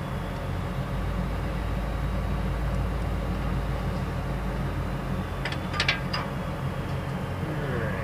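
Steady low drone of an idling engine, with a quick cluster of sharp metal clinks about five and a half seconds in as a roller chain is handled and refitted on a combine's drive sprocket.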